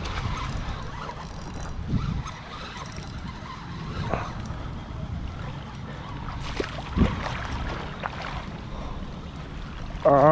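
Wind buffeting the microphone with an uneven low rumble, over light water sounds and a few faint knocks. A man's voice calls out at the very end.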